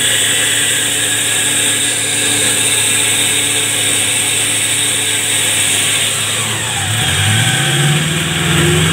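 Suzuki Jimny's engine running at low revs while the 4x4 crawls over a rock ledge. The revs rise about seven seconds in and stay higher as the driver gives it throttle.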